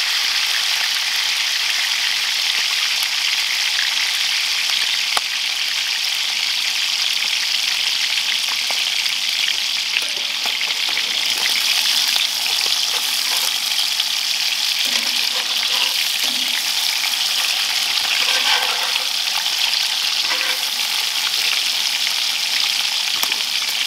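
Trout frying in hot oil in a skillet, a steady sizzle. Metal tongs click and scrape against the pan a few times around the middle as the fish is turned.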